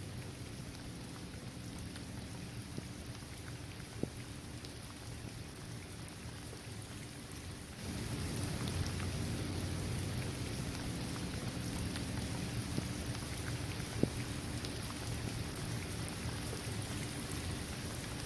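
Steady rain falling on a paved basketball court, trees and grass, with single drops ticking now and then; it gets suddenly louder about eight seconds in.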